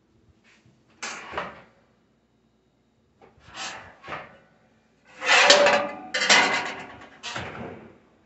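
Gas range's oven door being opened and later shut, with metal clattering and scraping from the door and racks in between, loudest a little past the middle.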